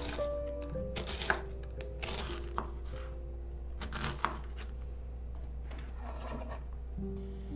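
Chef's knife chopping an onion on a wooden cutting board: several crisp cuts at irregular intervals, the blade knocking on the wood.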